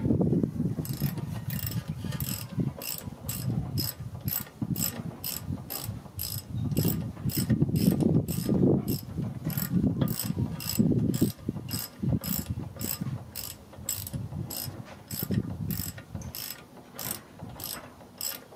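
Hand ratchet wrench clicking steadily, about three clicks a second, as a bolt on the front brake assembly is turned, with duller low handling noise underneath.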